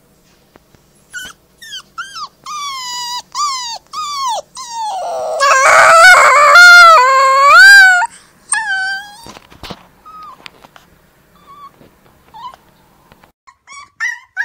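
A white pup giving short, bending yips, then breaking into a long, wavering howl about five seconds in, the loudest part, lasting some three seconds. A few short whimpering yips follow. Near the end a second pup starts a howl that falls in pitch.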